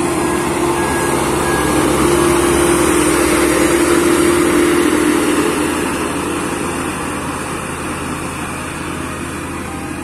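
HAMM HD 99 tandem road roller's diesel engine running as the roller drives over fresh asphalt, growing louder as it passes and fading as it moves away. A reversing alarm beeps steadily through the first two seconds.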